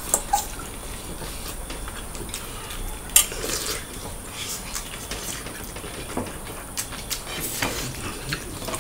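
Eating at the table: scattered clicks and clinks of a metal spoon against plates, with mouth sounds of eating by hand. The sharpest clink comes a little over three seconds in.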